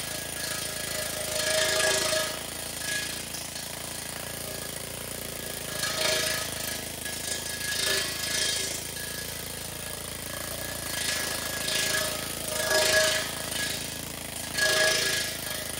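Air-powered needle scaler hammering rust and scale off the steel frame of a trailer tandem axle set, run in repeated bursts of a second or two.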